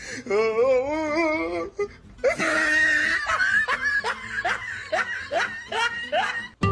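A woman laughing hard: a drawn-out wavering laugh, then a run of short, breathy laughs at about two a second.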